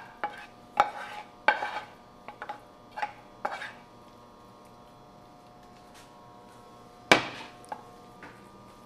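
Wooden spatula scraping cooked meat filling out of a nonstick frying pan into a casserole dish: a series of short scrapes and knocks over the first few seconds, then one louder clunk about seven seconds in.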